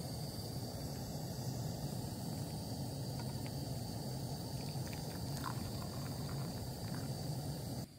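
Steady low roar of a hose-fed gas canister camping stove burning, with hot water poured into a titanium mug and a few faint splashes partway through.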